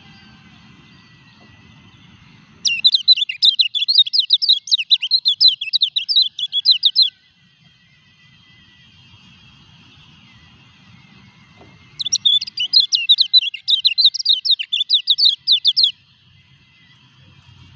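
A caged kecial kuning, a white-eye, singing in two bouts of rapid, high chattering notes, each about four seconds long, one starting about three seconds in and the other about twelve seconds in. The bird is in moult and still sings.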